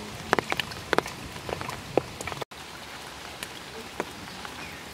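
Steady rain falling on puddles and wet leaves, with many sharp drips and small splashes in the first half. The sound cuts out for an instant about halfway, then the rain goes on more evenly with fewer drips.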